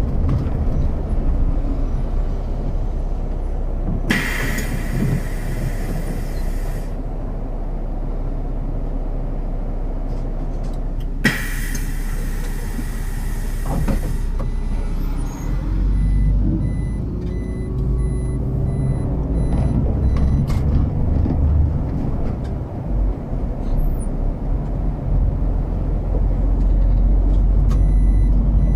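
City bus at a stop with its engine running. Two bursts of compressed-air hiss from the bus's pneumatics come about four seconds in and about eleven seconds in, each lasting some three seconds. From about halfway through, the engine grows louder as the bus pulls away.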